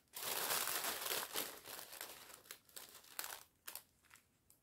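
Small plastic zip bags of diamond painting drills crinkling as they are handled. The rustle is densest for about the first second and a half, then comes in short scattered crackles.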